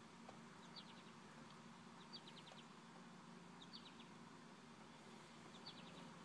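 Faint bird calls: a short high chirp with a quick trill, repeated four times about every one and a half to two seconds, over a low steady hum.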